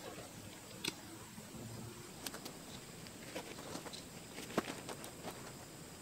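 Scattered sharp clicks and light rustling from a camouflage fabric pop-up blind being handled and set up on the ground. The loudest click comes about four and a half seconds in, over a faint steady high-pitched hiss.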